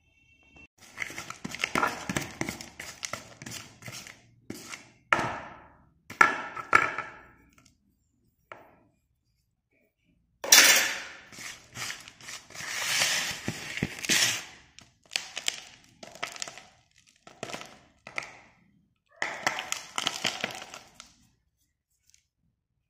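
Broken slate pencil pieces clattering and scraping against each other in a plastic tub as a hand stirs through them, in bursts of rattling clicks with short pauses between.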